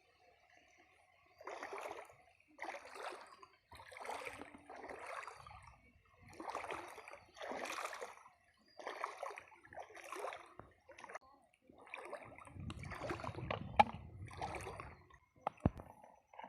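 Water splashing and sloshing in a repeated rhythm, about one swish a second. A low rumble near the end, with a couple of sharp knocks.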